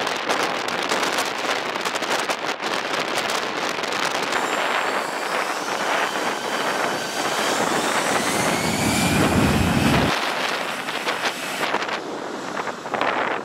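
Airbus A320's jet engines spooling up for takeoff: a rising whine over a steady rush of jet noise, with jet blast buffeting the microphone. A heavy low rumble comes in about eight seconds in and stops abruptly about two seconds later.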